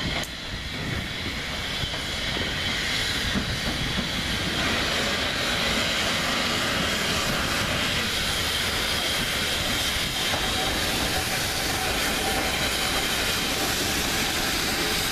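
SECR P-class tank engine 'Bluebell' and LB&SCR E4 tank engine 'Birch Grove' double-heading a coach train into the platform: a steady hiss of steam over the rumble and clatter of wheels on the rails. It gets louder over the first few seconds as the engines come alongside, then holds steady as the coaches roll past.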